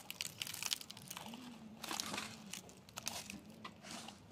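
Faint, scattered crackling and rustling close to the microphone, with a faint low wavering hum in the middle.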